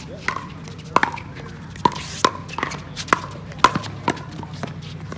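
Pickleball paddles hitting a plastic ball in a quick rally: a string of sharp pops, about two a second, over a low steady hum.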